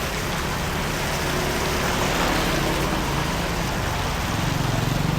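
Steady rushing noise of floodwater and rain, swelling slightly about two seconds in.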